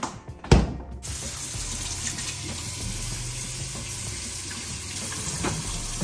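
A kitchen faucet running steadily into a metal sink while hands are rinsed under the stream, starting about a second in. Just before it, a single sharp thump of the refrigerator door being shut.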